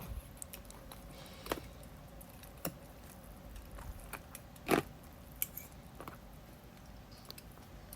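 A few faint, scattered clicks and knocks of a knife and fork working through a roasted chicken, the loudest about two-thirds of the way in.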